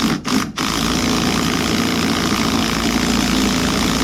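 Impact wrench hammering as it runs down a suspension nut or bolt. There are two short blips of the trigger at the start, then one continuous run.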